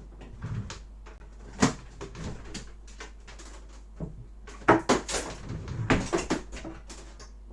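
Handling noise on a workbench: scattered sharp knocks and clicks, busiest about five to six seconds in.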